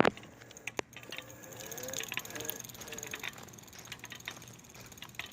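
Ancheer folding electric bike's gearbox clicking repeatedly and irregularly as it is ridden under the rider's weight, which the owner takes for something loose inside.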